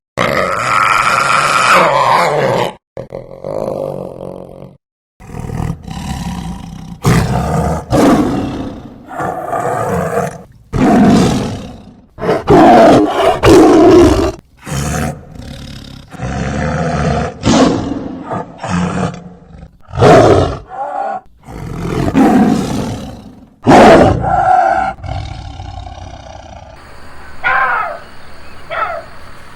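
A string of loud roars and growls from large wild animals, broken by abrupt cuts between separate calls. Near the end come a few short rising calls.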